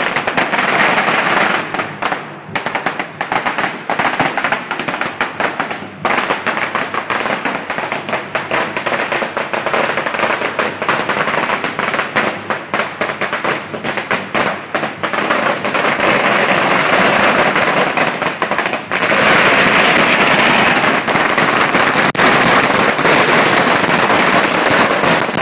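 A long string of firecrackers going off in a rapid, unbroken crackle of bangs. It grows louder and denser about three-quarters of the way through.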